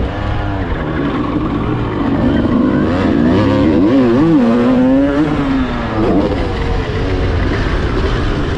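Honda CR250 two-stroke motocross engine revving hard under load. Its pitch climbs and drops again and again as the throttle opens and shuts, with a quick double swing about four seconds in.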